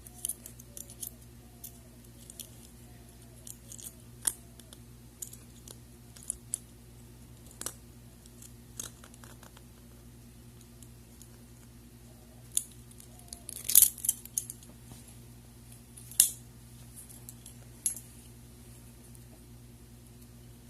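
Steel handcuffs clicking and rattling as a shim is worked into the ratchet: a scatter of sharp, irregular metal clicks, the loudest two about two-thirds through, over a steady low hum.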